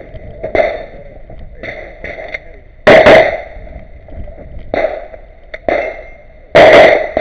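A string of 9mm pistol shots fired during a practical shooting stage, about eight at uneven intervals, three of them much louder than the rest, each leaving a short ring.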